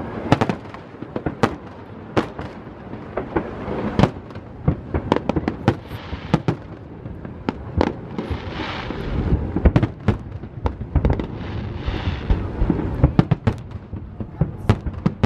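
Aerial firework shells bursting overhead: many sharp bangs in quick, irregular succession throughout.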